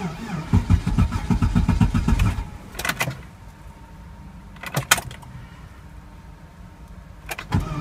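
Volvo XC90 2.5T turbocharged five-cylinder engine on a fast cold idle of about 1500 rpm just after a −30 °C cold start, heard from the cabin. About two and a half seconds in, the sound drops sharply to a quieter steady hum, broken by a few sharp clicks.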